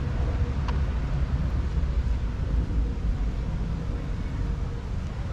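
Outdoor ambience dominated by a dense low rumble, with one short high chirp or click under a second in.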